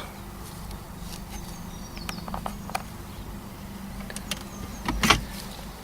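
Light clicks and taps of a plastic trim tool working the dashboard trim panel around the radio, with a louder sharp click about five seconds in, over a steady low hum.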